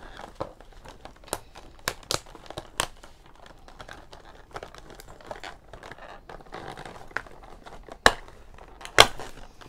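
Plastic doll packaging crinkling and rustling as a fashion doll is worked free of its box insert, with a run of sharp clicks and snaps; the two loudest snaps come near the end.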